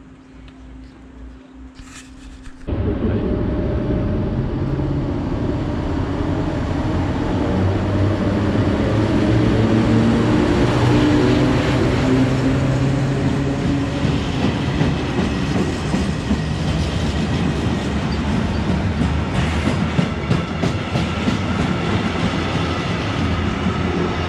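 Freight train hauled by a locomotive passing close by: a loud, steady rumble of wheels on rail with rattling and clacking from the wagons. It starts suddenly a couple of seconds in, after a quieter low hum, and faint high ringing tones join it near the end.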